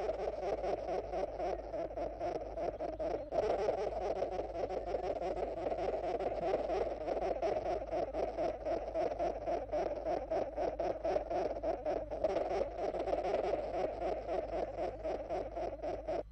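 Rapid, continuous chattering animal calls, a fast run of pulses that barely lets up and gets louder about three seconds in.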